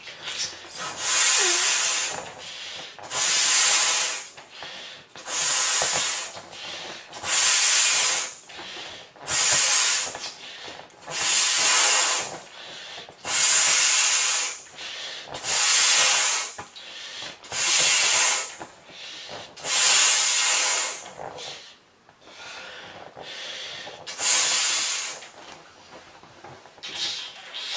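A large vinyl beach ball being blown up by mouth: long breaths hiss through its valve in a steady rhythm, one about every two seconds. There is a short lull with weaker breaths a little past the middle.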